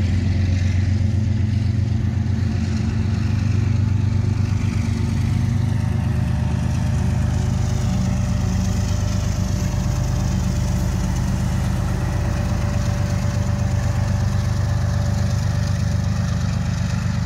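BNSF diesel locomotive passing close by with its coal train, its engine a loud steady low drone with a thin steady higher whine over it.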